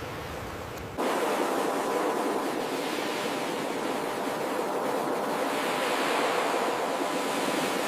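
Ocean surf washing on a beach, a steady rushing noise that jumps abruptly louder about a second in, like a splice in the recording.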